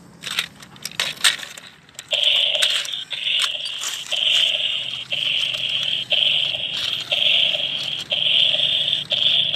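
Battery-powered walking toy dinosaur: a few clicks as it is handled and switched on, then from about two seconds in its small speaker gives a loud, buzzy electronic sound in even pulses about once a second.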